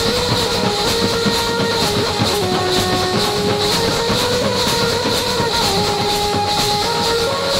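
Tasha party drumming: tasha kettle drums beaten in a fast, dense, rattling roll, with dhol barrel drums beating underneath, and a melody in held notes stepping up and down above the drums.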